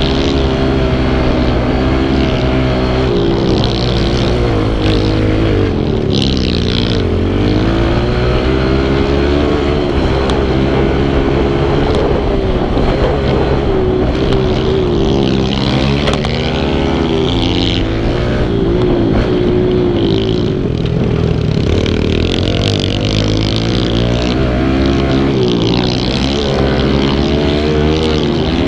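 Kawasaki KLX110's small air-cooled four-stroke single-cylinder engine being ridden hard, heard from on the bike. It revs steadily, and its pitch climbs and drops again and again as the throttle is worked, with deeper dips about a quarter of the way in, around the middle, and near the end.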